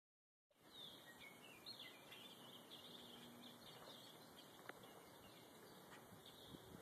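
Faint birdsong outdoors: many short chirps and warbles from songbirds, over a steady background hiss, with one sharp click about four and a half seconds in.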